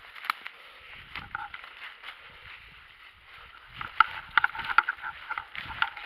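Footsteps crunching through dry fallen oak leaves and brush, with irregular crackles and twig snaps, loudest in a cluster about four seconds in.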